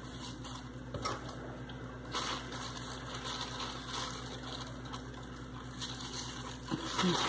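Thin plastic bag rustling and crinkling as metal paper clips are worked onto its folded top, with the beaten egg mixture shifting inside.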